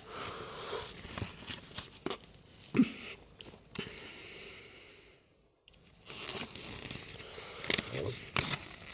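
Soft rustling handling noise with scattered small clicks and taps, pausing briefly in the middle and picking up again with a few sharper taps near the end.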